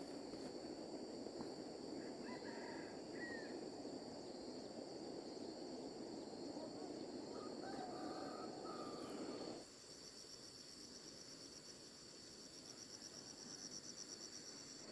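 Insects buzzing steadily in several high, steady tones, joined by a fast pulsing trill in the last few seconds. A few faint short bird chirps. Under them a rustling noise that cuts off suddenly about ten seconds in.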